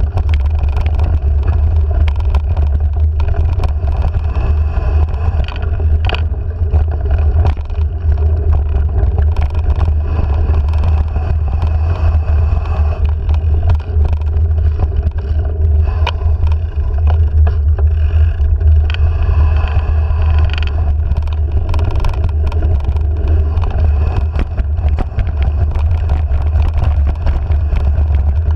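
Wind rumbling steadily on a handlebar-mounted action camera's microphone as a mountain bike rolls down a dirt trail, with frequent rattles and knocks from the bike over bumps.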